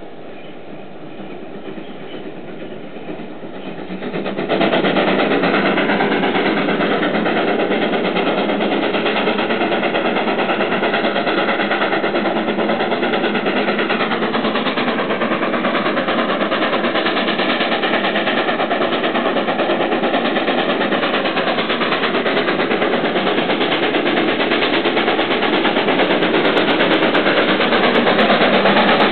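Steam train passing close below: a steam locomotive and its coaches running, the noise swelling sharply about four seconds in and then holding loud and steady.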